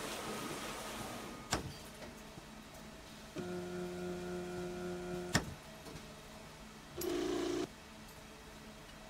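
A string of short sound effects: a click, then a steady electronic hum of about two seconds that ends in a sharp click, and later a brief buzzing tone of under a second.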